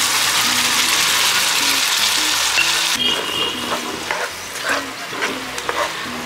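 Chicken curry sizzling in a pan as cooked gongura (sorrel leaves) goes in. About halfway through, the dense sizzle drops suddenly to a quieter one, and short scraping strokes of a spoon stirring the pan follow.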